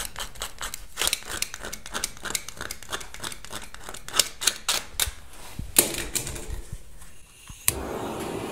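Protective plastic film being peeled off a StopZvuk M soundproofing membrane sheet, with quick irregular crackling and ticking, several clicks a second. Near the end a sharp click is followed by a steady gas-burner hiss as the torch for welding the membrane seams starts up.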